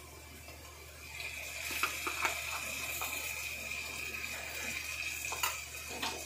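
Onions frying in oil in a pan sizzle, getting louder about a second in as lumps of ground masala paste are dropped into the hot oil, with a few light knocks of utensils.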